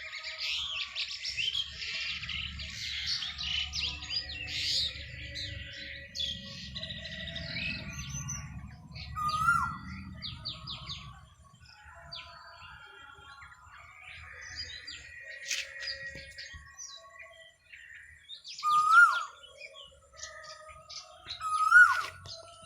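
Asian koel calling: three loud short calls, each rising then dropping sharply, one about halfway through and two near the end, over dense chirping from other small birds.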